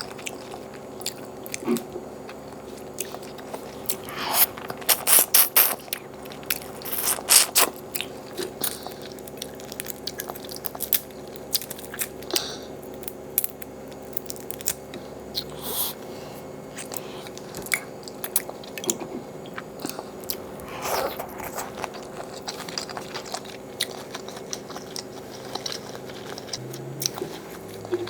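Close-miked mouth sounds of a person biting and chewing tiger shrimp and lobster mac and cheese. Loud crunchy bites come in clusters about 4 to 6 seconds in, again around 7 seconds and again around 21 seconds, with softer chewing clicks between. A faint steady hum runs underneath.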